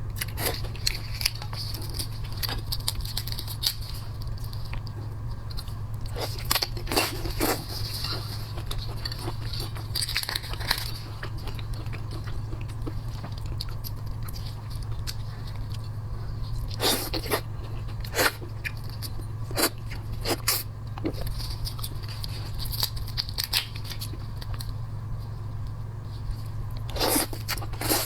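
Shellfish shell being cracked, torn and chewed close to the microphone: scattered crunches and crackles in several clusters, over a steady low hum.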